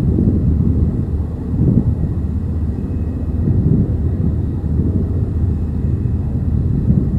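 Low, steady rumble of a Lockheed Martin C-130J-30 Hercules's four turboprop engines on takeoff.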